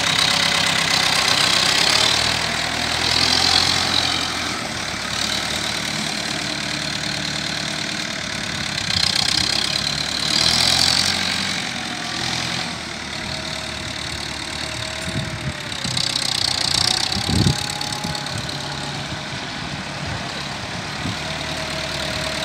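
Massey Ferguson 178's four-cylinder diesel engine running steadily as the tractor is driven about, its sound swelling louder a few times. A single short knock is heard about three quarters of the way through.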